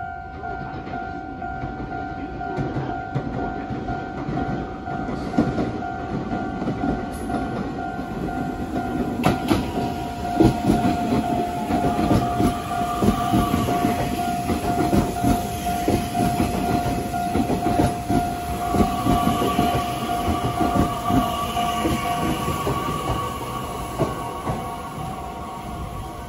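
Nishitetsu 3000 series electric train approaching and pulling into the platform, its wheels clattering over the rail joints and a whine rising as it slows. A steady high tone sounds alongside until near the end.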